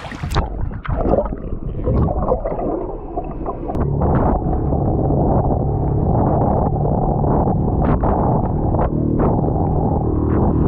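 Water sloshing with a few knocks against the inflatable boat, then about four seconds in the Yamaha 6HP outboard motor comes in and runs steadily.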